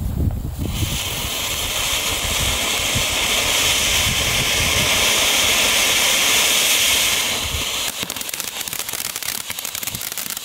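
Small category 1 firework fountain hissing steadily as it throws up a column of sparks, starting about a second in. From about eight seconds in it turns to fast crackling, many small pops in quick succession.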